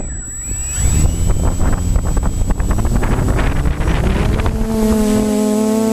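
Quadcopter motors and propellers spinning up, their pitch rising over several seconds while the propeller wash buffets the microphone. About five seconds in, a steady drone with overtones sets in.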